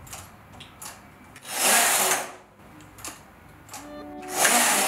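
Silver Reed knitting machine carriage sliding across the needle bed twice, each pass a loud swish of about a second, knitting short rows. A few light clicks of needles being pulled out by hand come between the passes.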